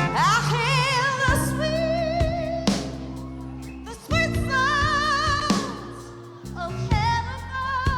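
Live gospel-tinged rock ballad: a woman's voice singing long held notes with a wide vibrato over the band's sustained chords.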